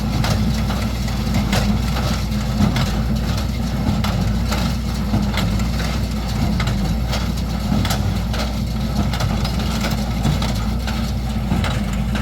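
Tractor engine running steadily while it drives a New Holland 67 Hayliner square baler, whose working parts give frequent irregular clacks and knocks over the engine hum.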